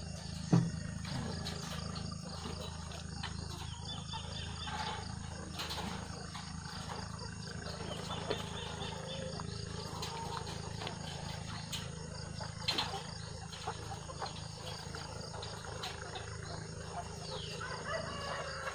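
A flock of caged white point-of-lay hens calling, with many short calls scattered through, over a steady low hum. A sharp knock sounds about half a second in.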